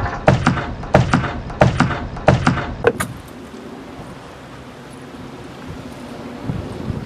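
Five sharp clattering knocks, about two-thirds of a second apart, in the first three seconds, then steady wind on the microphone.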